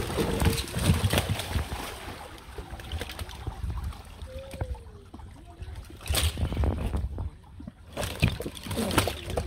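Water splashing and sloshing as large fish thrash in a cast net being hauled from the water, then a quieter stretch and two clusters of knocks and thuds, about two seconds apart, as the netted fish flop on the wooden boat deck.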